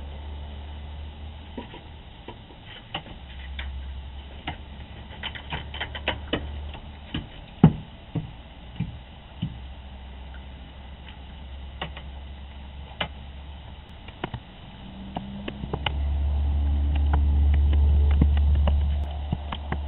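Scattered clicks and knocks from a raccoon rummaging among the eggs in a plastic nest box, one sharp knock louder than the rest about eight seconds in. A steady low hum runs underneath and swells into a louder low rumble for a few seconds near the end.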